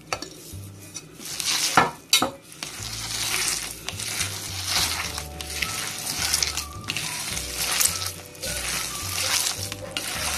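A hand mixing sliced onion, potato, spinach and green chilli into a gram-flour (besan) pakora mix in a plastic bowl, making a continuous rustling of the vegetables, with two sharp knocks about two seconds in.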